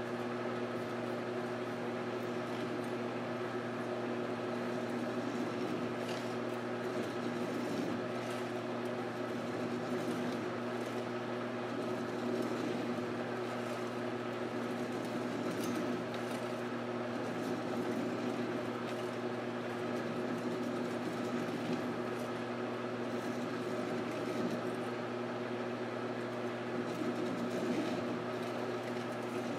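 Precision Matthews 1236-T lathe running in reverse with a steady hum. A Stanley hacksaw blade is held against the spinning 304 stainless steel bar and cuts through the core left by the parting tool.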